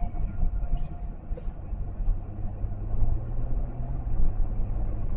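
Steady low engine and road rumble inside the cabin of a moving car.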